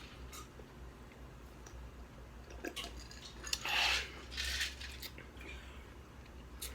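Ice clinking and rattling in a glass of soda, a few scattered clicks and two short rattles around the middle.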